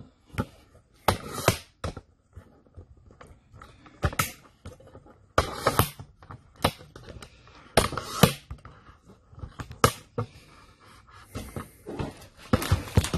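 Irregular knocks, clicks and short scuffling rustles in a small room: handling noise from a phone being set up and propped in place, with someone moving about close to it.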